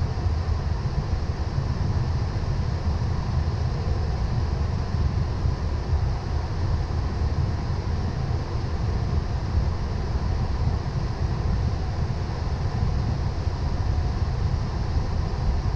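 Steady flight-deck noise of a Boeing 777 in flight: a deep rumble under a rushing hiss of air, with a faint steady tone.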